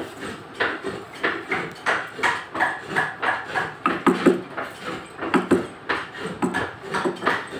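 Wooden mallet striking a carving chisel into solid akashmoni (acacia) wood, a steady run of sharp knocks at about three blows a second.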